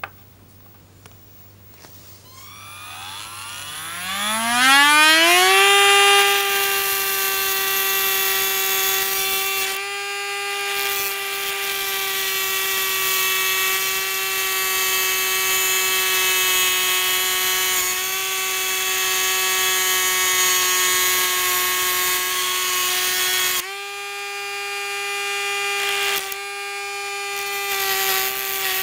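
Cordless Dremel Stylus rotary tool spinning up with a rising whine over a few seconds, then running at a steady high pitch as its cut-off wheel grinds through a thin metal rod, a harsh grinding hiss over the motor. The grinding drops out briefly twice, about ten seconds in and again later on, leaving the bare motor whine.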